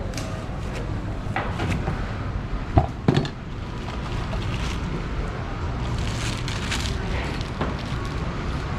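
A large knife slicing the skin off a whole pineapple in short scraping strokes, with a couple of sharp knocks a little under three seconds in, over a steady low background rumble.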